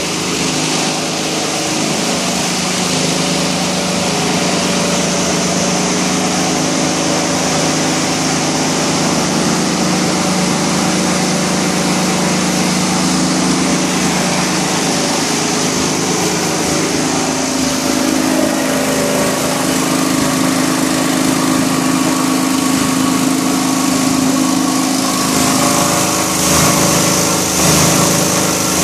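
Plastic crusher (granulator) running on its 37 kW motor: a loud, steady mechanical hum and whir of the motor and cutting rotor. Irregular sharp cracks come in near the end as plastic sheet is chopped.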